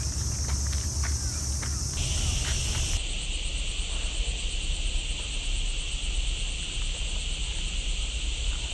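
Summer cicadas in the garden trees making a steady, high-pitched chorus. A second, lower-pitched chorus comes in about two seconds in. A few short chirps are heard in the first two seconds, and wind rumbles low on the microphone throughout.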